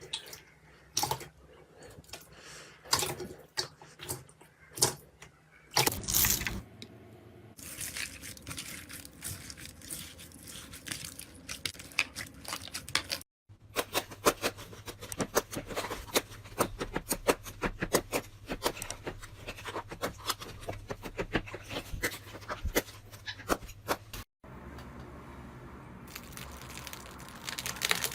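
Slime being squeezed and worked by hand: rapid sticky clicks and pops, dense through the middle stretch. The sound breaks off abruptly twice for an instant between clips.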